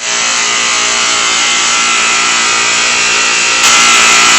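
A noisy air conditioner running loud, a harsh steady mechanical noise over a humming drone, stepping up in loudness about three and a half seconds in.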